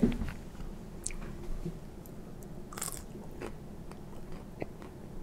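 A person biting into and chewing a fermented, semi-dried pepperoni snack stick in sheep casing: a bite at the start, then quiet chewing with small clicks and a short noisy sound about three seconds in.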